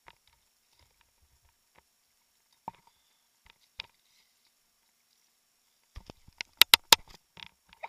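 Kayak paddle knocking against the plastic kayak hull: a few scattered knocks, then a quick run of sharp, loud knocks about six to seven seconds in.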